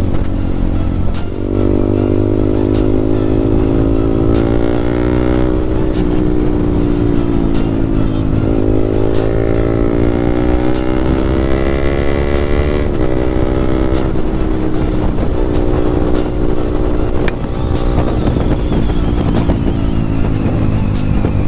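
Yamaha MT15's single-cylinder engine through a loud aftermarket exhaust, accelerating hard: the revs climb, drop at a gear change about five seconds in, climb again through the next gear, then fall away as the throttle is eased off.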